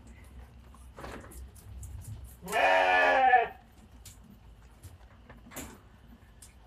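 A sheep bleating once, a single wavering call about a second long, a little over two seconds in. Faint clicks and rustles sound before and after it.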